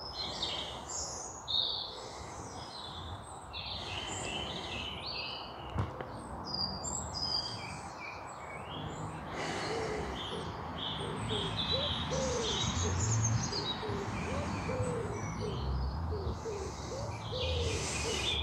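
Several wild birds singing outdoors, a steady mix of short high chirps and whistles. About halfway through, a lower call repeats rapidly for several seconds.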